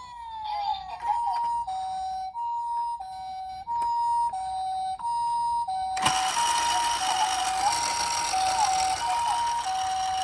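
Toy ambulance minicar's electronic siren playing the two-tone hi-lo call, alternating evenly between a higher and a lower note about every two-thirds of a second. About six seconds in a click is followed by a steady hiss under the siren.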